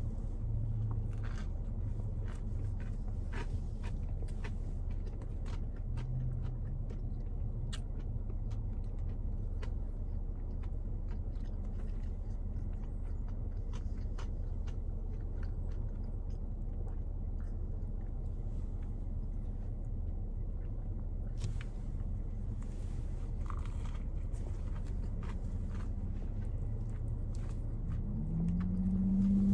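A man biting and chewing a crispy breaded chicken sandwich, with scattered small crunching clicks throughout. A steady low hum runs underneath.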